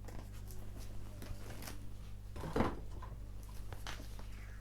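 Cardboard box being handled and worked open: scattered light knocks and rustles, with one louder knock a little past halfway.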